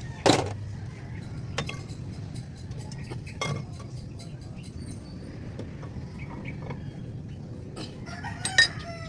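Hand tools and metal engine parts clinking and clanking as the rocker arm assembly of an Isuzu 4HG1 diesel engine is taken apart, with one sharp metal clank just after the start. A rooster calls near the end.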